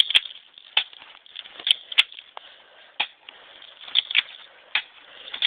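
Airsoft pistol fired repeatedly: about nine sharp snaps at uneven intervals, some in quick pairs, while the pistol is being shot empty.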